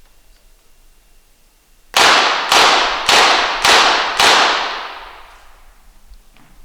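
A rapid-fire .22 Short target pistol firing a five-shot series: five sharp shots about half a second apart, the last one echoing away over a second or so.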